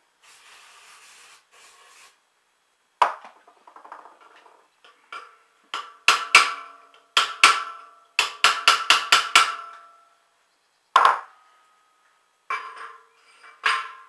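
An aerosol can spraying in a hiss for about two seconds, then a hammer striking a steel punch against the shaft hub of a concrete mixer's ring gear. There are about fifteen ringing metal taps, most of them in quick runs through the middle.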